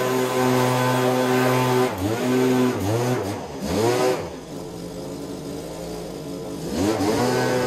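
Small two-stroke engine of a handheld garden power tool running at high revs. The revs dip and pick back up a few times, drop to a lower idle for a few seconds, then rise again near the end.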